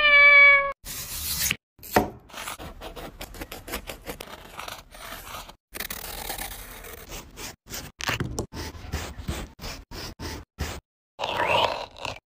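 A cat meows once, falling in pitch, at the start. Then comes a run of short clips of a small knife cutting and scraping through the rind of a netted melon, and near the end a melon baller scooping out the soft flesh.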